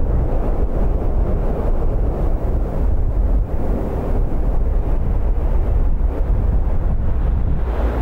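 Rushing air buffeting a microphone on an aircraft in flight: a loud, steady, low rumble with no clear engine tone. Near the end it turns slightly quieter and brighter, with more hiss.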